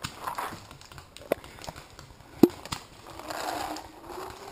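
Paintballs pouring from a pod into a paintball marker's hopper, a dense rattle about three seconds in, the sound of reloading. A few sharp cracks come earlier.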